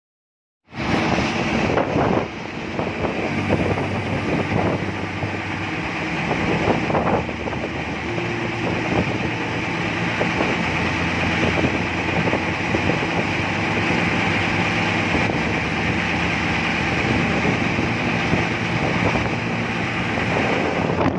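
Tugboat's diesel engine running steadily, with wind on the microphone; it cuts in abruptly about a second in.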